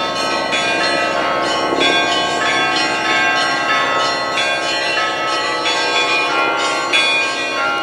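Church bells pealing, several bells of different pitches struck in quick succession, about two or three strikes a second, their rings overlapping.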